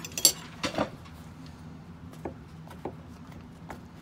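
Fork clinking against the pot pie's dish and plate and breaking into its crisp baked crust: two sharp clicks in the first second, then three lighter taps spread over the rest.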